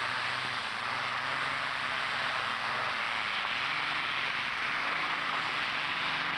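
Competition pulling tractor's engine running flat out under load as it drags the weight sled, a loud steady engine noise whose pitch wavers slightly.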